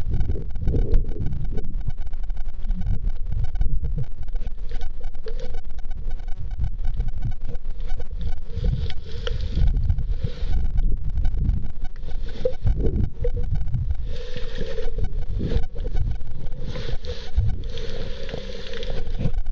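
Muffled underwater noise from a camera held below the surface: low, irregular rumbling of moving water against the housing, with a couple of brief hissing swells in the second half.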